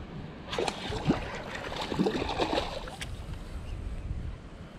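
Hooked small fish splashing and gurgling at the water's surface as it is fought on a bent rod, with a few sharp clicks, over a steady low rumble.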